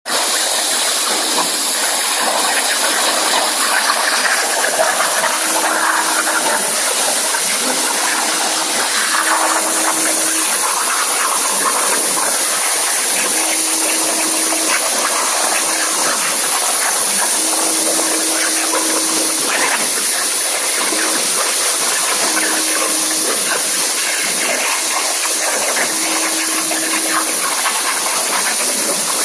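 Hypertherm Powermax 125 plasma torch cutting on a CNC table: a loud, steady hiss with no break, and a faint low hum that comes and goes in short stretches.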